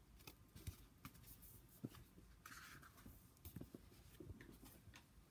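Faint rustling and light taps of a picture book's paper pages being handled and turned, with one longer swish of a page a little over halfway through.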